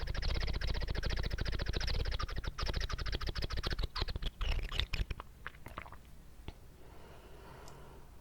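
Close-miked wet mouth sounds: rapid, dense clicking and smacking that thins out to a few scattered clicks about five seconds in, then turns faint.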